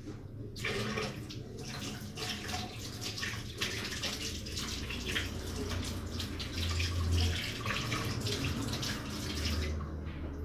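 Kitchen tap running into a sink, the water splashing unevenly as hands are washed under it; it comes on about half a second in and shuts off shortly before the end.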